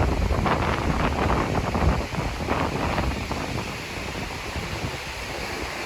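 Wind buffeting the microphone over the wash of storm-driven Lake Superior surf, easing somewhat about four seconds in.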